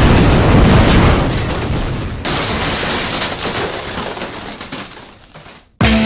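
Explosion sound effect of a building blowing apart: a loud blast with breaking debris that fades out over about five seconds. Just before the end, rock music cuts in abruptly.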